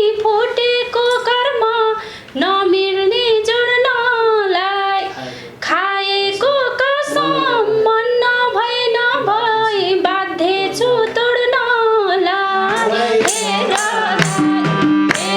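A woman singing a dohori folk song in long, ornamented notes that bend and waver, breaking off briefly twice. Near the end the voice gives way to instruments holding steady notes over a light, regular percussion beat.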